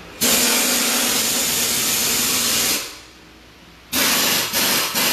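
Compressed air hissing loudly: one long blast of about two and a half seconds, then three short bursts near the end.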